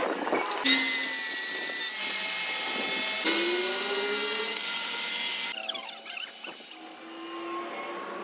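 Workshop power tools working metal on a clutch flywheel, drilling and grinding with whining tones. The sound changes abruptly every second or two.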